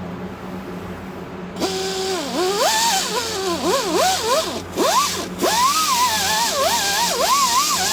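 Music begins about a second and a half in: a melody whose pitch slides and wavers continuously, over a steady low hum.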